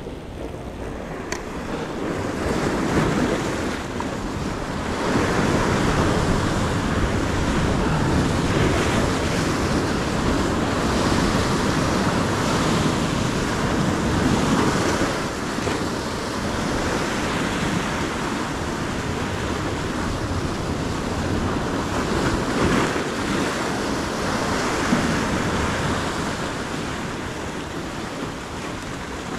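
Sea surf washing against a rocky shore, swelling and easing, with wind buffeting the microphone.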